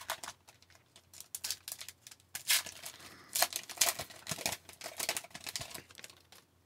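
Wrapper of a pack of hockey trading cards torn open and crinkled, with the cards handled: an irregular run of crackles and rustles, loudest around the middle, stopping shortly before the end.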